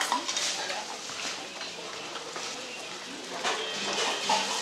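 Metal spoon scraping and clicking against a stone dolsot bowl as bibimbap is stirred, with scattered sharp clicks.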